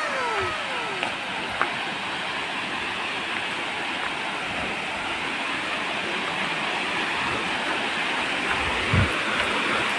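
Steady rushing of a small waterfall pouring into a rock pool, with a single low thump about nine seconds in.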